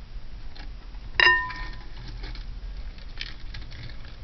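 Costume jewelry pieces clinking and rattling as they are handled, with one sharp, briefly ringing clink about a second in followed by a run of small light clicks.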